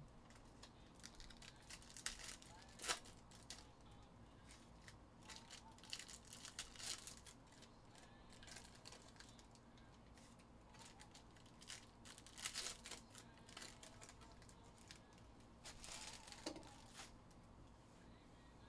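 Faint crinkling and rustling of foil trading-card pack wrappers and cards being handled, in scattered short bursts, with the sharpest crackle about three seconds in.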